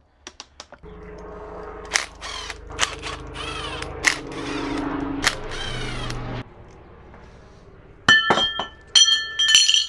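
A small motor-driven hand tool runs for about five and a half seconds, with clicks and a whine that rises and falls over and over, then cuts off suddenly. Near the end come several sharp metal clanks that ring with clear metallic tones.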